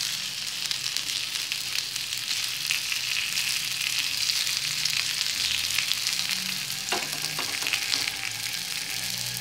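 Green chickpea fritters sizzling in mustard oil on a tawa griddle, a steady crackling hiss, with one brief knock about seven seconds in.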